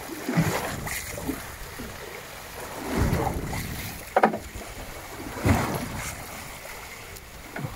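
Water splashing and surging against a boat's hull as a huge skate thrashes at the surface alongside, in several rushes, with a sharp knock about four seconds in and wind rumbling on the microphone.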